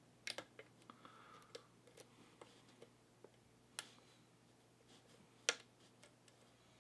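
Faint, scattered small clicks and ticks of a lock pick working the pins of an Abus 72/40 padlock under tension, with a sharper click about five and a half seconds in.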